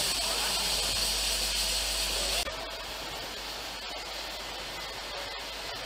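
Steady, loud hiss of steam from a standing LMS Jubilee class 4-6-0 steam locomotive, 45596 Bahamas, cut off abruptly about two and a half seconds in. After that, a quieter steady rush of wind and station background.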